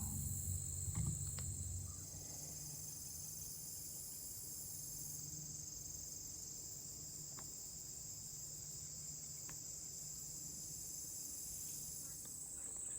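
Steady, high-pitched chorus of crickets, with a few faint ticks.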